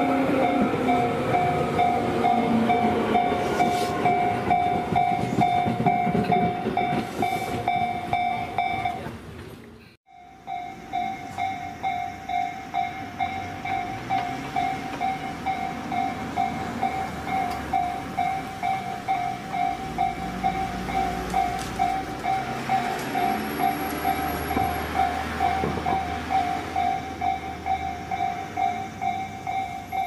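Japanese level-crossing alarm ringing its repeating warning bell while a Tobu 10000 series electric train runs past, its running sound carrying a whine that falls in pitch. The sound cuts out about ten seconds in. After that the crossing alarm keeps ringing on its own at about two strikes a second.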